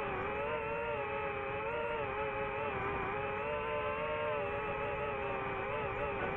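DJI FPV drone's motors and propellers whining in fast forward flight: a steady buzzing tone with several overtones that wavers slightly in pitch.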